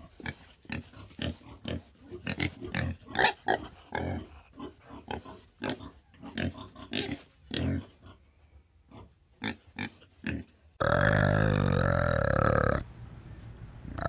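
A black domestic pig grunting, short grunts coming one after another at an irregular pace. About eleven seconds in, a much louder drawn-out low animal call takes over for about two seconds and then stops abruptly.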